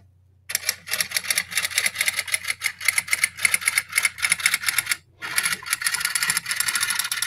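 Typewriter keys clacking in a rapid, uneven run of clicks, broken by a short pause about five seconds in: a typewriter sound effect laid under text being typed out on screen.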